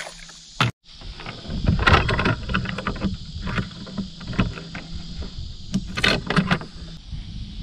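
Metal chain fish stringer clinking and knocking against the aluminium canoe's gunwale as it is handled, a scatter of sharp clicks and taps.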